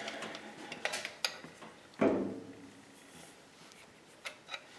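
Steel adjustable wrenches clinking against a brass hydraulic valve fitting as they are set on to tighten it: a few light clicks and one louder knock about two seconds in.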